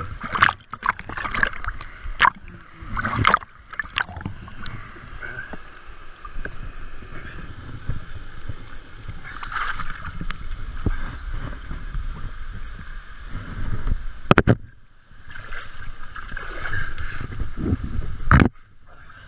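Water splashing and sloshing close to a camera as a swimmer surfaces in a waterfall pool and climbs out onto rock, with sharp knocks and scrapes from the camera bumping against stone. The knocks come in a cluster in the first few seconds and then twice more near the end.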